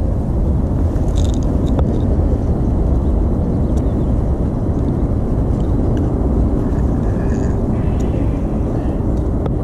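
Steady low rumbling noise, with a few faint clicks as a hook is worked out of a small pike in a landing net.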